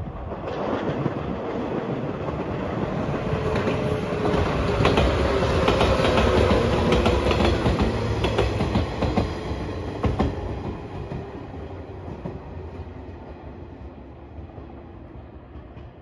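A yellow JR 115 series electric multiple unit passing by: it grows louder, its wheels clicking over the rail joints as it goes past, then fades away as it moves off.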